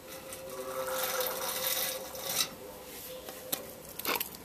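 Clear plastic drain tube being pulled out of the sight-glass port of a Copeland hermetic compressor's oil sump after the oil has been drawn off: a scratchy, sucking hiss for about two seconds, then a few light clicks and taps.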